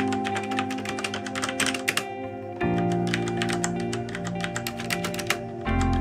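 Rapid, uneven typing on a CM Storm QuickFire Rapid-i mechanical keyboard with Cherry MX Brown switches, many keystrokes a second with a brief lull about two seconds in. Calm background music plays under the typing.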